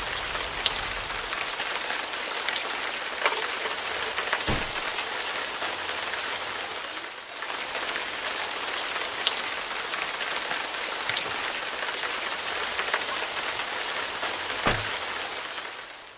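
Steady rain falling, an even hiss with scattered sharp drop hits, easing off briefly about halfway through and fading out at the end.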